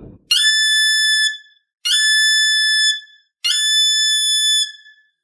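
Suona blown three times in its upper register: each note scoops up briefly from mi and settles into a high, steady overblown sol held about a second. The slide up from mi is the helper-note technique for reaching the overblown sol.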